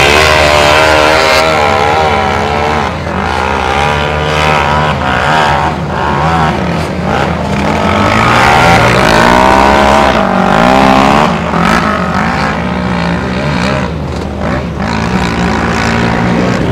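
ATV and sand rail engines revving hard under load on a steep sand dune climb, their pitch rising and falling again and again.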